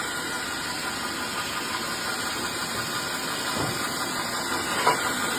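A machine motor running steadily, with a couple of light knocks, the sharper one near the end.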